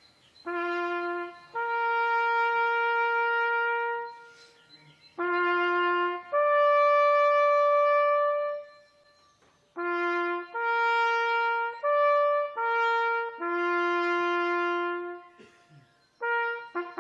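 Solo trumpet playing a slow military bugle call of long held notes in separate phrases, with short pauses between them. Near the end it turns to a run of quicker, shorter notes.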